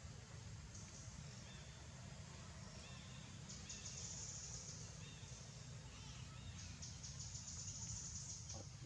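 Faint outdoor ambience: insects trilling in pulsed stretches that come and go, and a few short, high bird chirps between about one and a half and six seconds in, over a steady low rumble.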